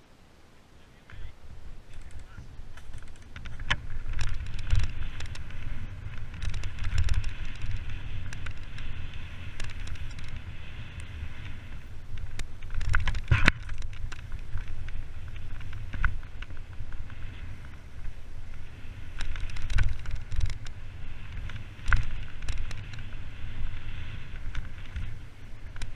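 Mountain bike descending a rough dirt forest trail, heard from a helmet-mounted camera: wind rumble on the microphone and tyre noise over the dirt, with a constant clatter and rattle of the bike and frequent sharp knocks over roots and bumps, the loudest about halfway through. It is quiet for the first second or so, then builds as the bike gets moving.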